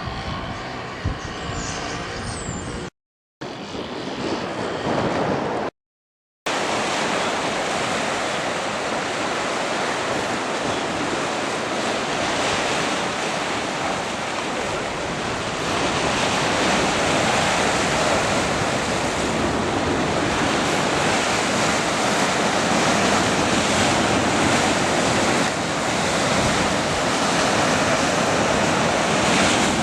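Wind and sea noise in a few short cut-up clips, then from about six seconds in a steady, dense rush of heavy rain and wind in a tropical-style downpour at sea.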